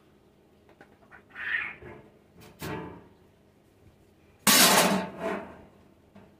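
Sheet-metal lid handled and laid onto a sheet-metal feed tray: a light metal knock about two and a half seconds in, then a loud clatter of metal on metal about four and a half seconds in, with a smaller knock just after.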